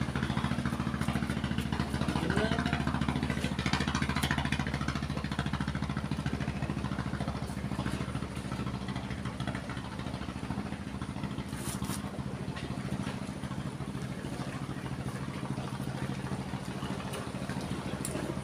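A small engine running steadily at an even speed, easing slightly quieter about eight seconds in.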